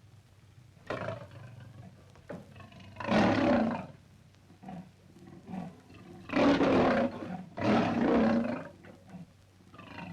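Lion roaring: a shorter call about a second in, then three long, loud roars about three, six and a half and eight seconds in, with short, softer grunts between them.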